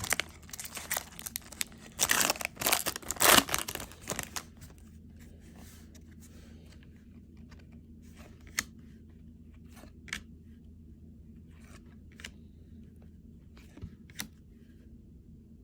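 A baseball card pack's foil wrapper being torn and crinkled open, loud for the first four seconds or so. After that come only a few faint, scattered clicks.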